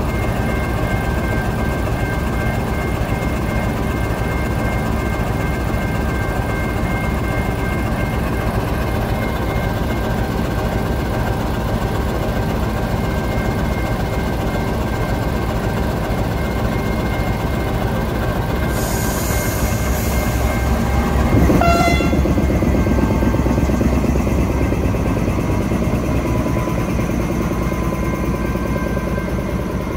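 KTMB Class 26 diesel-electric locomotive engine running with a steady drone and a steady whine. About two-thirds in there is a short burst of hiss and a brief sharp sound, after which the engine runs louder.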